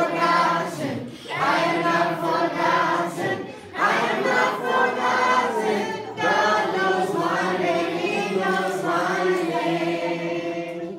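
A large group of children singing a worship song together, in sung phrases with brief pauses between them.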